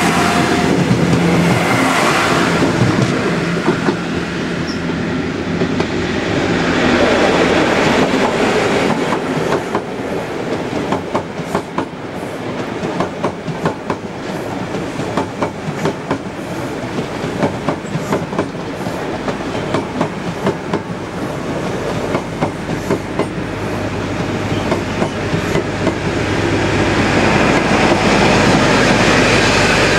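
A train passing close by. An engine hum opens the stretch, then through the middle come many quick, irregular clicks of wheels running over rail joints, and a low engine hum builds again near the end.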